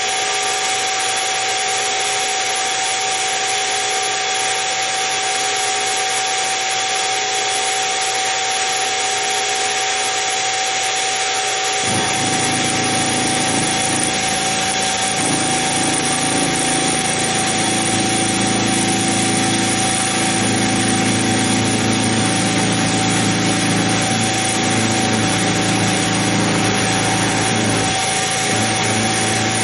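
Harbor Freight mini mill's spindle motor running with a steady whine. About twelve seconds in, the end mill bites into the metal and an uneven, lower grinding cut joins the whine, as the part is turned by hand against the cutter.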